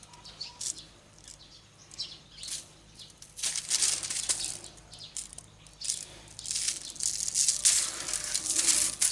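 Hands rubbing dry spice rub into a rack of pork ribs on aluminium foil: irregular rustling, scraping and crinkling, light at first and busier from about three seconds in.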